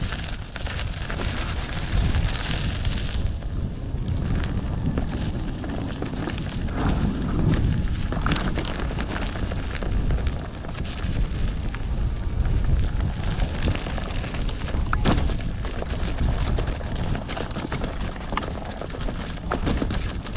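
Heavy rumble of wind buffeting a moving microphone, with rattling and crunching over a loose, rocky trail and scattered sharp knocks during a fast descent.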